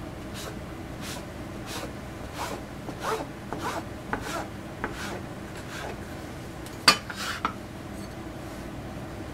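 Stainless steel bench scraper chopping a rope of pasta dough into pieces on a plastic cutting board, a soft tap on the board with each cut, about one or two a second. Toward the end the cutting stops and a single sharper clack of metal on the board follows, as the scraper is set down.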